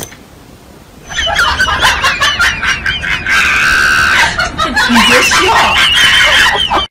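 A person's high-pitched laughing and squealing, starting about a second in, with rapid wavering giggles and one longer held squeal.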